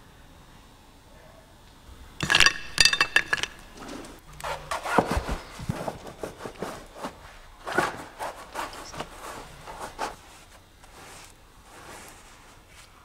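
Painting tools clinking briefly against a container, then a run of irregular scraping and rubbing of paint being worked across a canvas, with a few knocks.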